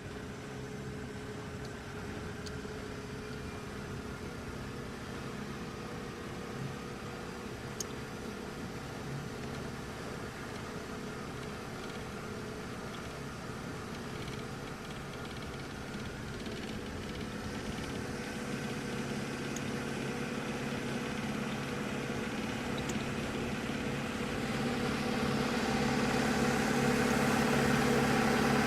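An engine running steadily, getting louder and brighter over the last several seconds.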